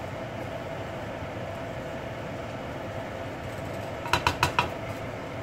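Steady low kitchen hum while a spatula spreads cooked rice in a pan; about four seconds in, four quick knocks of the spatula against the pan, ringing briefly.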